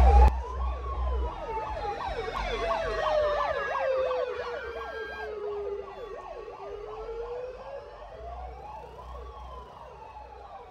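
Electronic siren: a slow wail rising and falling over a few seconds, with a fast yelp of about three sweeps a second over it. The yelp stops about halfway, and the wail fades steadily as it moves off.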